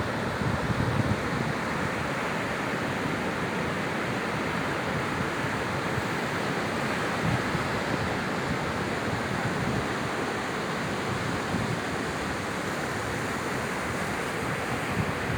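Sea surf washing steadily onto the shore, a continuous rushing of breaking waves. Wind buffets the microphone with low rumbles, mostly near the start.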